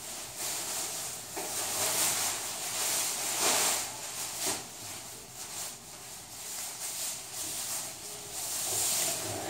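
Irregular rustling and handling noise that swells and fades, with a couple of short knocks near the middle.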